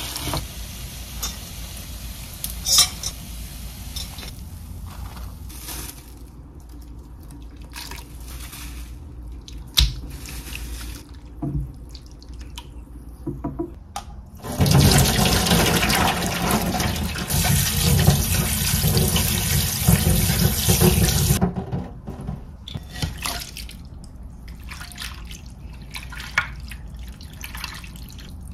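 Kitchen tap running into a sink for about seven seconds starting halfway through, then turned off. Before and after it come scattered light knocks and clinks of kitchen utensils.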